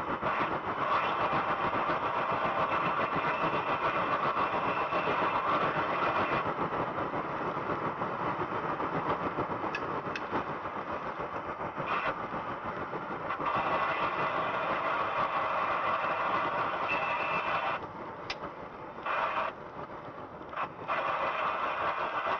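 Steady vehicle engine and road noise, which drops away briefly a few times near the end.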